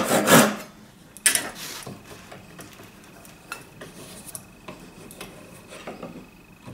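Kataba, a Japanese single-edged ripsaw, taking its last few quick pull strokes through a board, about four a second, and stopping about half a second in. About a second later comes a short, sharp clatter that rings briefly, then only faint small knocks.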